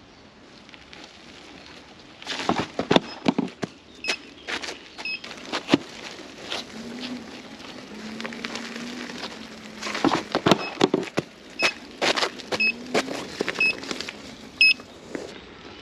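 Electric unicycle ridden over rough, stony ground: a faint motor whine that rises and falls in the middle stretch, with many sharp knocks and clatters from the wheel and the ground. Several short high beeps sound through the second half.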